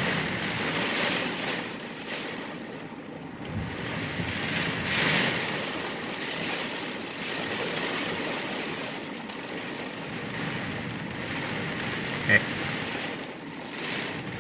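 Heavy rain pouring down on a car, heard from inside the cabin: a steady rushing hiss that swells and eases in gusts.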